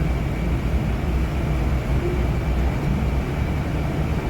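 Steady low rumble of a moving vehicle heard from inside, with a faint constant high whine above it.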